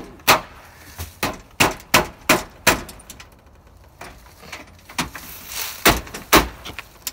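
Fists knocking and banging hard on the outer door of a house: a quick run of six or so knocks, a pause of about two seconds, then three or four more.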